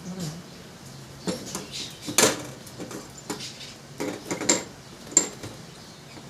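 Metal parts of a gas cooking stove clinking and clanking as they are handled and knocked together, about six sharp knocks spread through a few seconds, some with a short ring.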